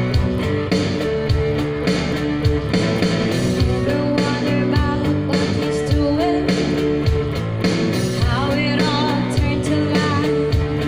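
A pop song with electric guitar and a steady beat; a woman's singing voice comes in about four seconds in.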